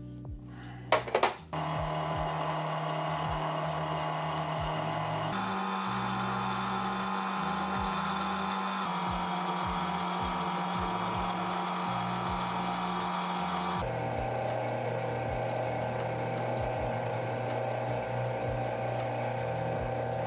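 Small bench lathe starting up and running steadily while a turning tool cuts along a metal bar, a motor and gear hum with a few clicks and a clunk about a second in. The tone of the running changes abruptly a few times.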